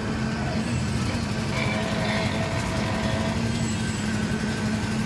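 An engine running steadily with a constant low hum, with faint voices in the background.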